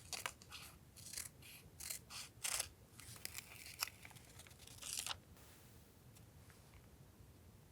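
Scissors cutting paper: a quick run of crisp snips that stops about five seconds in.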